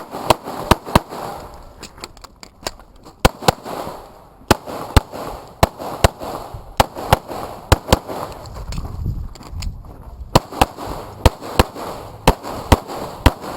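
Competition handgun fired rapidly, mostly in quick double shots, with short pauses between strings.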